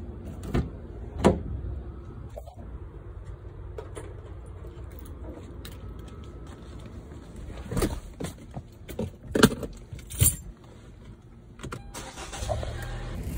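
Getting into a Hyundai car: the door and seat give several knocks and clunks, the loudest in a cluster about eight to ten seconds in, with keys jangling. A low steady hum sets in near the end.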